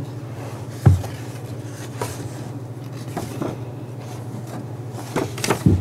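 Steady low hum through a lectern microphone, with a few short knocks and rustles of handling at the podium. The loudest knock comes about a second in, and two more come near the end.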